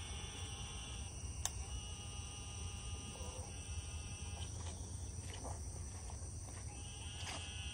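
Steady chorus of insects trilling, high-pitched and continuous, with a sharp click about a second and a half in and a fainter one near the end.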